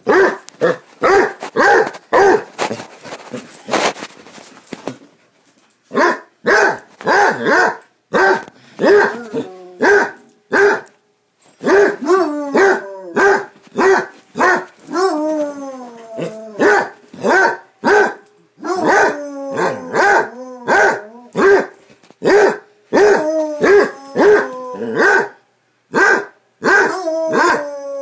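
Basset hound play-barking over and over, about two barks a second, many of them drawn out into falling, baying barks. A burst of rustling scuffle comes a few seconds in.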